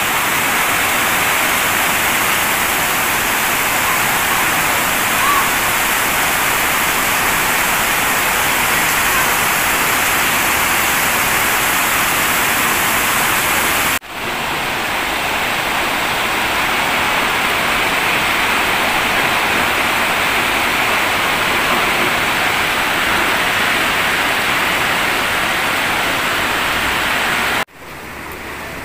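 Heavy downpour: a loud, steady hiss of rain. It breaks off sharply about halfway and starts again, then breaks off once more near the end and comes back quieter.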